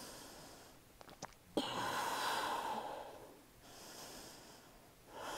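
A woman's slow breathing, in and out. The loudest breath begins sharply about one and a half seconds in, just after a couple of faint clicks.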